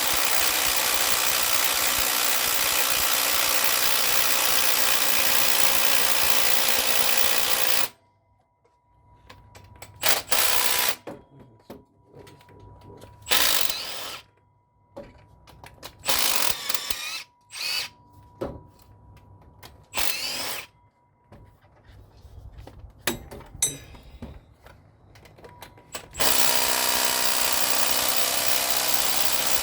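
A handheld power tool's motor runs steadily for several seconds, then stops. It gives several short bursts over the following seconds and near the end runs steadily again.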